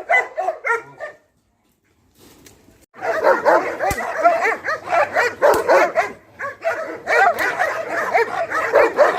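Dogs barking and yelping. About a second of short, quick barks is followed by a brief silence, and from about three seconds in comes a dense, continuous run of overlapping yapping barks.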